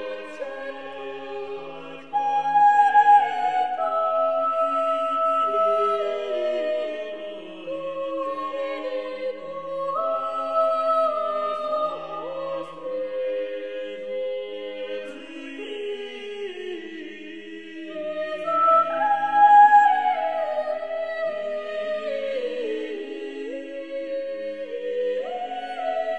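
Choral music: several voices singing held notes in slowly moving lines, swelling louder about two seconds in.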